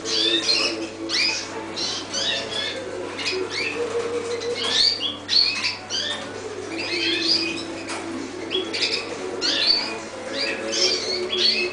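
Many domestic canaries chirping and singing at once: a dense, overlapping stream of quick high chirps and short trills, with a steady low hum beneath.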